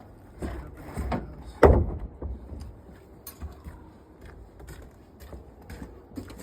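A cut wooden deck board being slid and knocked down into a tight gap between neighbouring boards. There are a few wooden knocks, the loudest about a second and a half in, then lighter taps and scraping.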